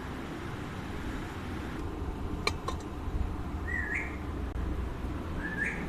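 Alexandrine parakeet giving two short rising chirps, about two seconds apart, over a steady low rumble. Two sharp clicks come shortly before the first chirp.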